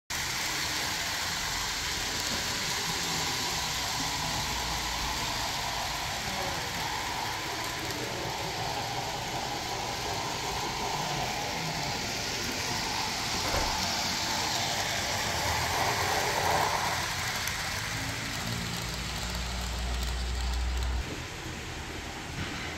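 HO-scale Rivarossi Santa Fe Blue Goose model steam locomotive running on the layout, its DCC sound decoder playing steam-engine sound over a steady mechanical noise. A low rumble swells near the end, then drops away suddenly about 21 seconds in.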